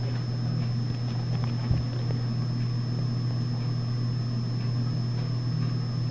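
Steady low hum with a thin high whine above it, and a soft bump about one and a half seconds in.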